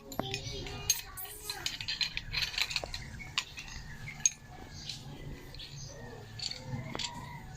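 Scattered light metallic clinks and taps of hand tools against metal during air-conditioner copper-tube repair, over a faint steady low hum.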